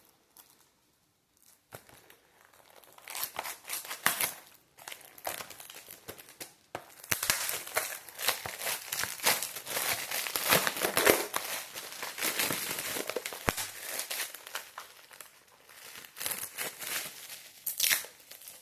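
Plastic shrink-wrap crinkling and tearing as a Blu-ray case is unwrapped by hand, in irregular bursts that grow dense and loudest in the middle.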